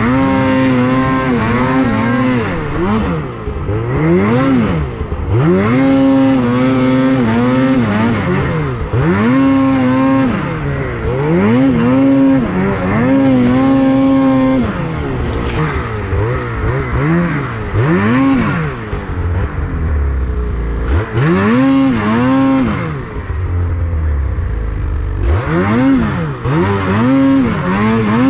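Snowmobile engine throttled up and eased off again and again while riding, its pitch climbing, holding for a second or two, then falling, over a steady rushing noise.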